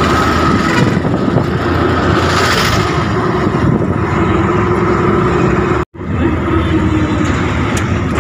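Auto-rickshaw engine running steadily with road rumble, heard from inside the open cabin while riding. The sound cuts out for an instant about six seconds in.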